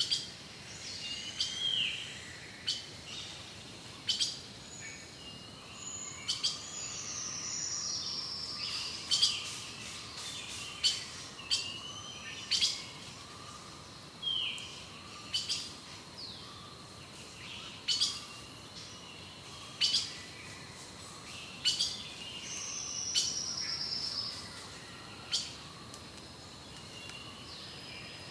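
Amazon rainforest ambience of birds calling: short downward-swooping calls, sharp snapping clicks every second or two, and twice a longer falling call, over a steady high insect-like tone.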